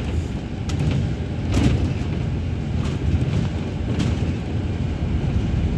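Bus interior noise while driving: steady engine and road rumble, with several brief rattles and knocks from the bus body.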